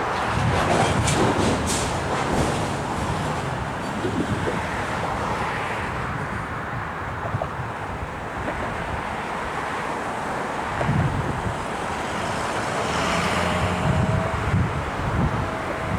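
Steady rumble of a train moving through the station, with wind buffeting the microphone. A few sharp ticks come in the first couple of seconds, and a faint steady tone comes in near the end.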